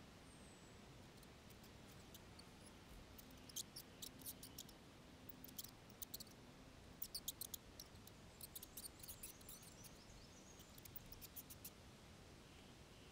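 Mice giving quick, high-pitched squeaks and clicks in several short bursts, starting a few seconds in, over an otherwise near-silent background.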